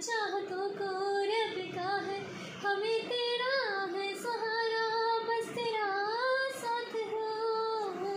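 A woman singing a slow melody unaccompanied, holding long notes that bend up and down.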